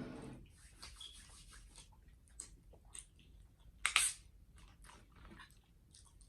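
Close-up chewing and crunching of food, with scattered small crackles and one louder, sharp crunch about four seconds in.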